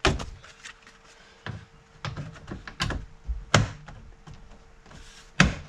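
About six separate knocks and clunks from handling a pickup's rear door, spaced a second or so apart, the sharpest near the start and near the end, over a faint steady hum.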